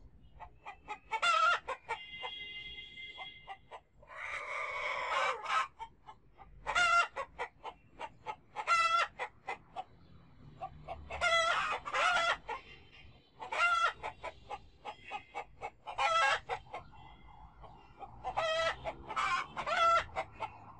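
Chickens clucking and calling in repeated bouts of quick notes, one bout every couple of seconds, with a harsher squawk about four seconds in.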